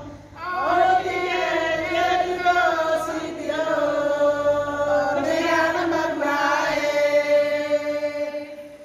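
A group of women singing together in unison, in long held phrases. The singing breaks off briefly at the start and again just before the end.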